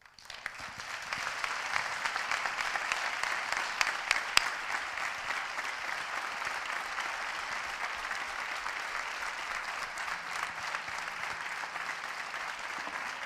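Theatre audience applauding. The clapping swells over the first second, then holds steady, with a few sharper single claps standing out about four seconds in.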